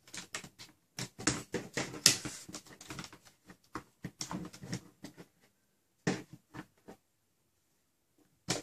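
Clear plastic blaster shell parts clicking, knocking and scraping against each other as they are handled and fitted together by hand: a dense run of small clicks for about five seconds, then a few isolated knocks.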